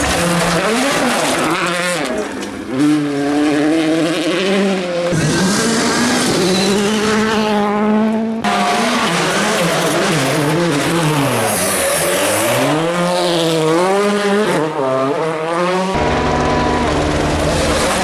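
Turbocharged four-cylinder World Rally Cars driven flat out, engines revving hard with the pitch repeatedly climbing and dropping through the gears. The sound changes abruptly three times as one car gives way to the next.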